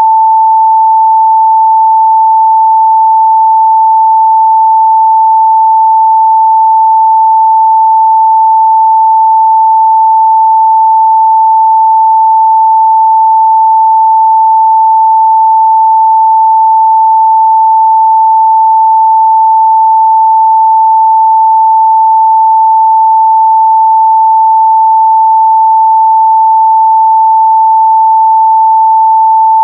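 A continuous, steady 885 Hz pure sine-wave test tone at one unchanging pitch and level, used for checking speaker and headphone midrange response.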